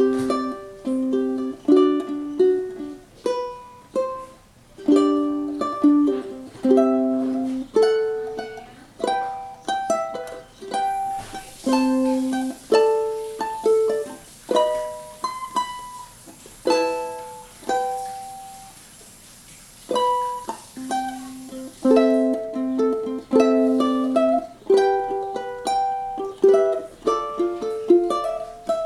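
Collings UT-1 mahogany tenor ukulele with Aquila strings being played: a run of plucked chords and single melody notes that ring out. About seventeen seconds in, one note is left to fade before the playing picks up again.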